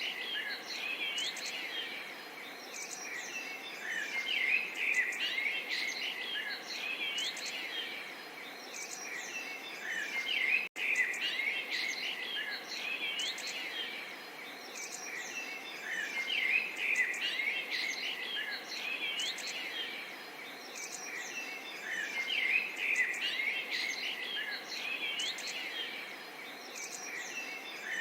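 Small songbirds chirping and trilling over a soft, steady murmur of water. The sound cuts out for an instant about eleven seconds in.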